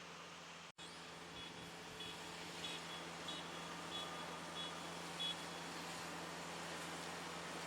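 Combine harvester engine running with a steady hum, with a high electronic warning beep repeating about one and a half times a second for several seconds.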